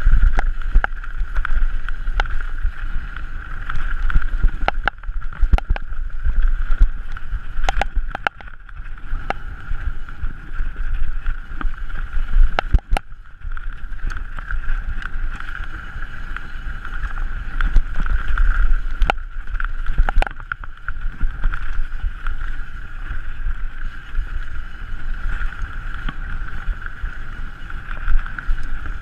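Mountain bike descending a rough trail, heard from an onboard camera: wind buffeting the microphone and the low rumble of the bike over the ground, with sharp knocks and rattles of impacts scattered throughout, over a steady high buzz.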